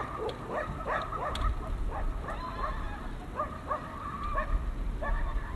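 Stray dogs barking in a rapid run of short barks, several a second at first, then more spaced out, with a low rumble underneath from about a second in.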